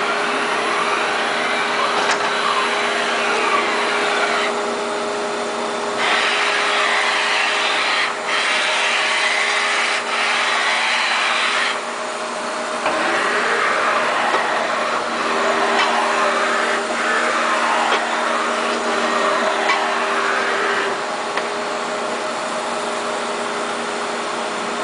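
CNC vertical machining centre running: a steady machine whine with tones that rise and fall over a second or two, and a broader rushing noise that cuts in and out in stretches of several seconds.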